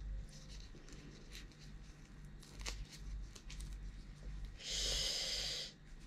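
Shells of boiled shrimp crackling and clicking as they are peeled by gloved hands, with a hissing intake of breath about a second long near the end.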